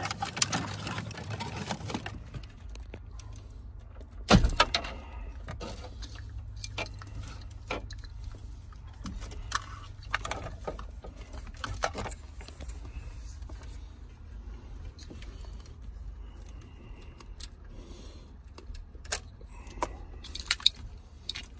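Plastic wiring-harness plugs clicking and rattling as they are worked loose and unplugged from a car stereo, with wires and the loose head unit clattering. One much louder knock about four seconds in.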